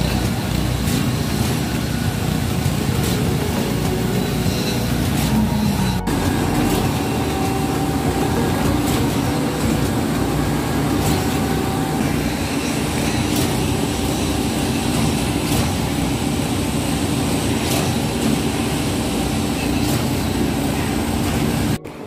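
Putzmeister truck-mounted concrete boom pump running steadily while pumping concrete, its diesel engine working under load, with faint knocks about every two seconds.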